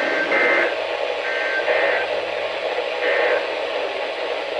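NOAA Weather Radio SAME digital data bursts, the screechy two-tone end-of-message code that closes the weekly test, played through a weather radio receiver. Several short bursts come about a second apart over steady radio hiss.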